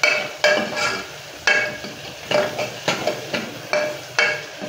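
Metal ladle stirring onions frying in oil in an aluminium pressure cooker, knocking and scraping against the pot with a ringing clink about twice a second, unevenly spaced, over a light sizzle.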